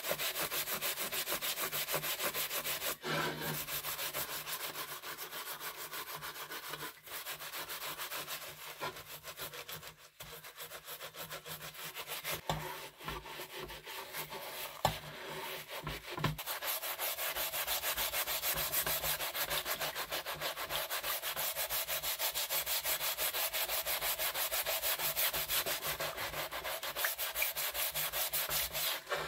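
Stiff-bristled brush scrubbing rusty steel scissors in soapy water, in rapid, even back-and-forth strokes. The strokes pause briefly about a third of the way in, and a few knocks follow.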